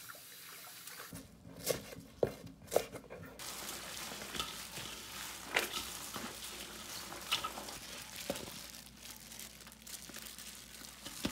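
Plastic-gloved hands mixing cut chives with red chili seasoning in a stainless steel bowl: irregular crinkling of the plastic gloves and rustling of the chives. Three sharp clicks come about two seconds in.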